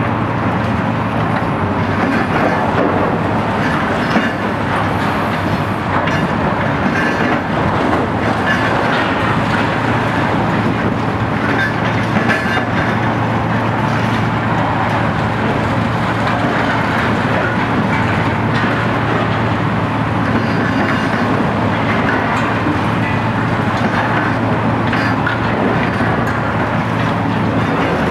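Diesel engines of heavy demolition excavators, a Komatsu PC800-8 high-reach machine and a Cat excavator, running with a steady low drone under load, over continual irregular clattering and crunching of broken concrete and debris.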